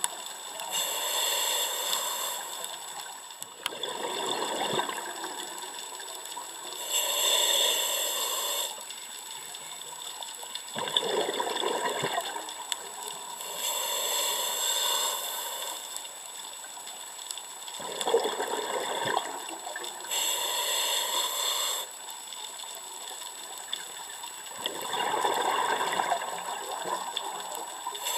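Scuba diver breathing through a regulator, heard underwater: a hissing inhale through the regulator, then a rush of bubbling exhaust on the exhale. The cycle repeats about every six to seven seconds, roughly four breaths.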